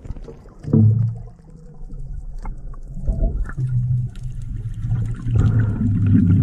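Low underwater rumbling and bubbling, with a loud swell about a second in and again near the end.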